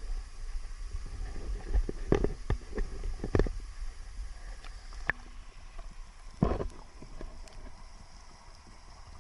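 Waterfall water heard with the microphone under water: a steady low rumble with scattered gurgles and sharp knocks, the loudest about six and a half seconds in.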